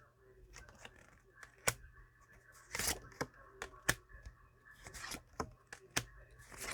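Tarot cards being handled on a table: a few sharp taps and short papery swishes as cards are moved and laid down, over a faint steady hum.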